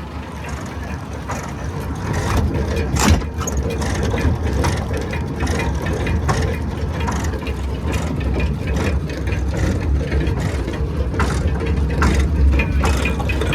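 Old David Brown tractor engine running steadily while its PTO turns a manure spreader. The spreader's moving parts clatter with many irregular clicks and knocks, with one sharp clank about three seconds in; it gets a little louder about two seconds in.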